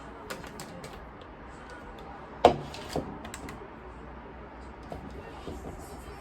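Scattered light clicks and taps, with a sharp knock about two and a half seconds in and a softer one half a second later.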